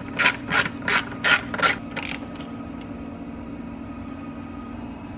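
Hand ratchet clicking in short back-strokes, about three a second, as a T25 Torx screw is backed out; the clicking stops about two seconds in. A steady low hum runs underneath.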